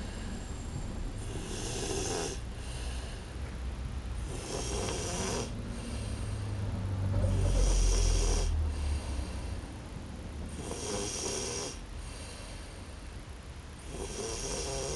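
Snoring: five long, rasping snores about three seconds apart, with a louder low rumble about halfway through.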